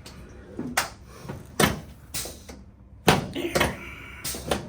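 A series of sharp knocks and thuds from chiropractic adjustment thrusts on a patient lying face down on a treatment table, coming every half second or so, the loudest about three seconds in.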